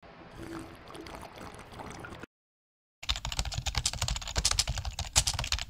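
Slurping iced coffee through a plastic straw, a soft airy noise. After a short gap of silence comes rapid, dense keyboard typing clicks, the loudest part.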